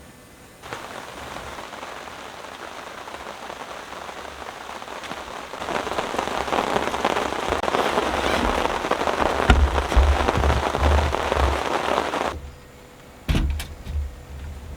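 Heavy rain pouring down. It starts suddenly about a second in, grows heavier around six seconds in and then cuts off abruptly. A few loud sharp thumps follow near the end.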